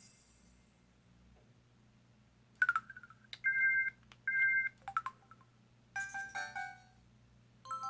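Samsung Anycall SPH-W3000 mobile phone playing a series of short electronic effect and alert tones. After a near-quiet start, a blip comes about two and a half seconds in, then two identical two-note beeps, a couple of quick blips, and a short run of falling notes around six seconds. A new tone melody begins right at the end.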